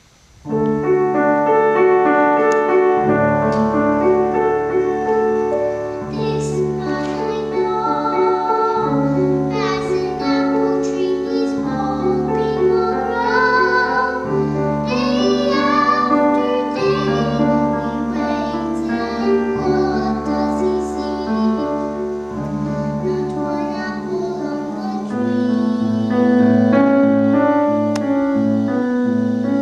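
A grand piano starts playing about half a second in, and a six-year-old girl sings a song over the piano accompaniment.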